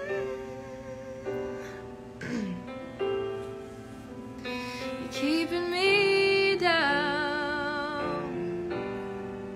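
A woman singing a wordless, held melodic line with strong vibrato over sustained piano chords, rising and swelling to its loudest about six seconds in, then settling back.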